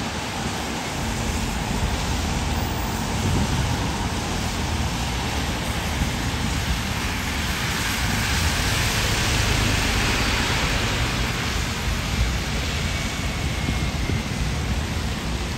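Road traffic including buses on a rain-soaked road: a steady low engine rumble under the hiss of tyres on wet tarmac and falling rain, the hiss swelling about halfway through as a vehicle passes close.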